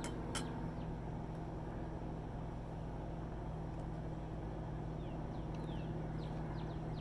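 Steady low mechanical hum, as of a motor or engine running, over outdoor ambience with a few faint high bird chirps. A light click of cutlery comes about half a second in.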